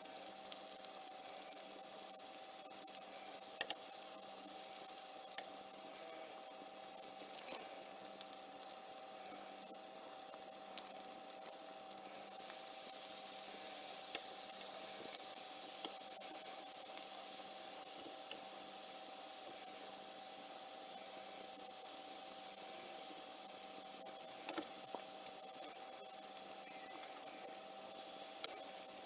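Meat sizzling in a hot frying pan, with occasional sharp clicks of metal tongs against the pan. The sizzle gets louder about twelve seconds in, as more meat goes into the pan.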